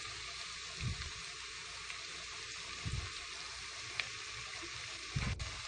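Chopped onions and green chillies sizzling in hot oil in a pressure cooker, a steady hiss, with a few soft low thumps.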